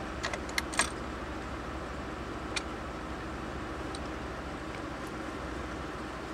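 Steady low mechanical hum, with a few light clicks in the first second and one more about two and a half seconds in.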